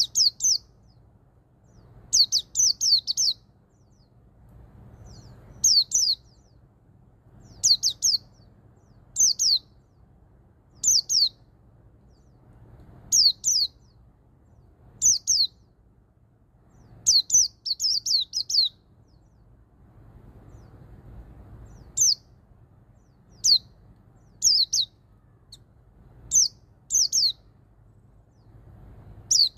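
White-eye (pleci) singing its 'ngalas' song: short phrases of one to five sharp, high, down-slurred notes, repeated every second or two with short pauses between.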